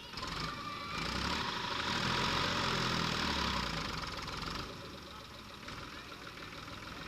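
Backhoe loader's diesel engine running, getting louder about a second in with a hiss over it, then dropping back to a steadier run just past the middle.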